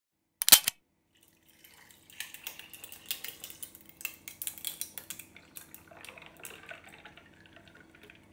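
A sharp bang about half a second in, then a run of quick light clinks and clatter, like dishes and cutlery being handled.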